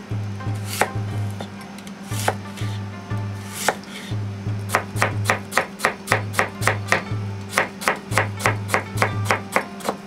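Kitchen knife chopping daikon radish on a plastic cutting board. A few separate cuts at first, then from about four seconds in a quick, even run of about three to four knife strikes a second.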